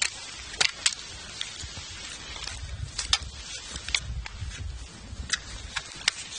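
Handling noise: fabric rubbing and crumpling against the microphone, with irregular sharp clicks and a low rumble.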